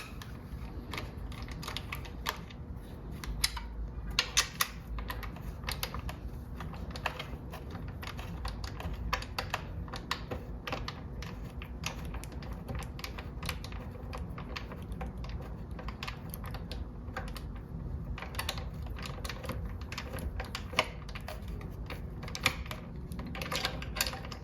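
Ratcheting wrench with a 12 mm socket clicking in runs as the bolts holding a motorcycle's stock tail section are backed out, with scattered knocks of tool on metal.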